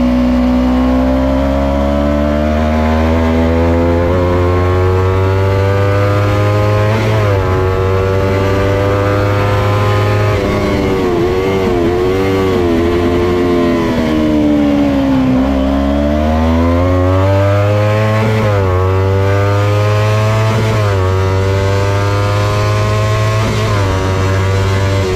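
Kawasaki Ninja 250's parallel-twin engine run hard on a race track. Its pitch climbs through the gears with quick upshifts, then drops and wavers for a while about halfway through as the bike slows for a corner. It climbs again with several more upshifts near the end.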